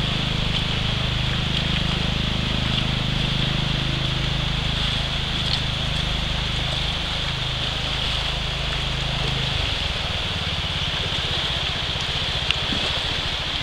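Shallow river rapids rushing steadily over stones, with a low rumble underneath that drops away about nine and a half seconds in.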